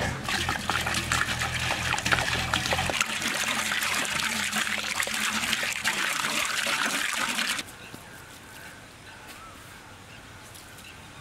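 Water pouring in a steady stream into a large aluminium cooking pot, filling it. The pouring cuts off suddenly about seven and a half seconds in, leaving a quiet background.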